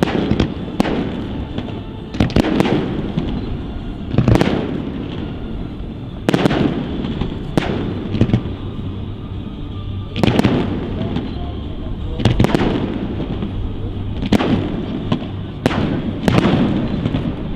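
Fireworks display: aerial shells bursting one after another in sharp bangs, irregularly about every second, with a low rumbling echo trailing each burst.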